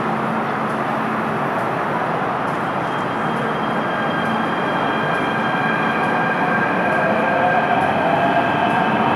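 MTR M-Train electric multiple unit moving along an underground platform: a steady rumble of wheels and running gear. A motor whine comes in about three seconds in, and near the end a lower part of it rises in pitch as the train gathers speed.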